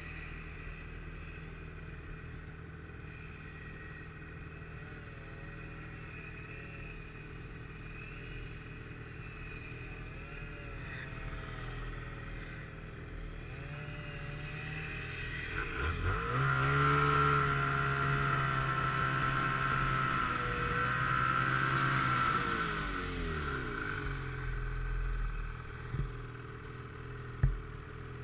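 Snowmobile engine running at low revs with a wavering pitch, then revving up about halfway through, held high for several seconds and dropping back to idle. A single sharp knock just before the end.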